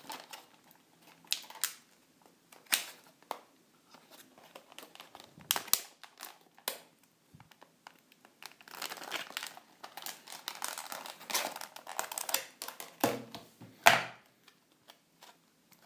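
Plastic packaging crinkling and crackling as it is handled and opened, with scattered clicks; the sharpest snap comes near the end.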